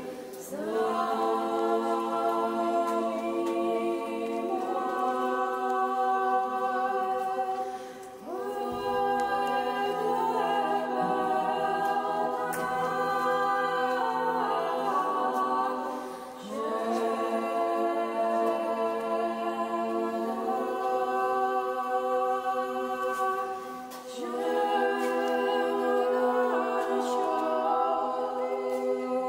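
A group of voices singing without instruments, holding a sustained chord in four long phrases about eight seconds apart. Each phrase begins with the voices sliding upward into pitch.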